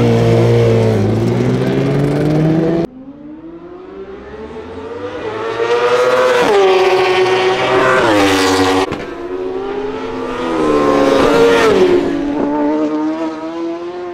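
Suzuki GSX-R1000 superbike's inline-four engine at race revs. It pulls away hard at first, then after a sudden cut about three seconds in it accelerates through the gears, the pitch climbing and snapping back at each quick upshift, and climbs once more before falling away as the bike goes by.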